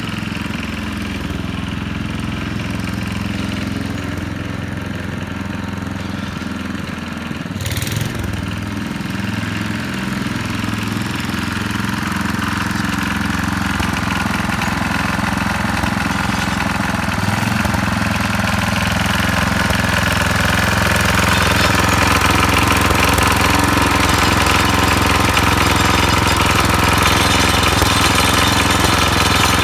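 Tecumseh HH120 single-cylinder engine of a 1968 Sears Suburban 12 garden tractor running steadily, with one sharp click about eight seconds in. It grows gradually louder and brighter through the second half.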